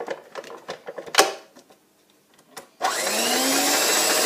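Clicks and knocks as the electric hand mixer is settled onto its stand over the bowl. About three seconds in, the mixer's motor switches on, rising in pitch as it spins up, then runs steadily as the beaters mix the cake batter with its sifted flour.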